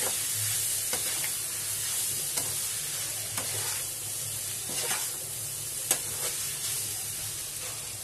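Chowmein noodles and vegetables sizzling in a hot metal kadhai while a spatula tosses and mixes them, clicking and scraping against the pan every second or so.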